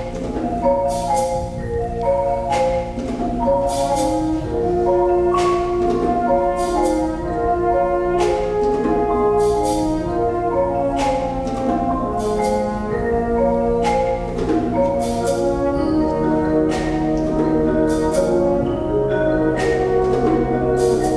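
Concert wind band playing a piece, with mallet percussion carrying the melody over sustained band chords and regular percussion strikes.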